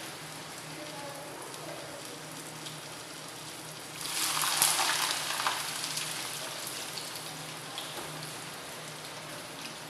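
Oil sizzling in a frying pan as onion, garlic and boiled cassava sauté. About four seconds in, the sizzle flares up loudly, then dies back to a steady hiss over a couple of seconds.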